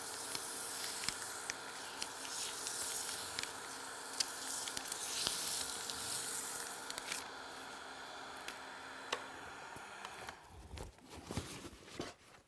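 Wood lathe running with sandpaper hissing against a spinning walnut handle, with small scattered ticks. The lathe's hum stops near the end.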